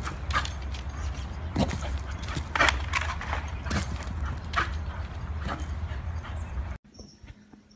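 A small dog barking in short, sharp yaps, roughly one a second, over a steady low rumble. It all stops abruptly near the end.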